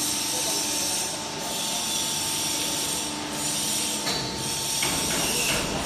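A double-end chamfering machine running, a steady mechanical noise with a high hiss and a constant whine. About five seconds in, a rougher, fuller noise comes in.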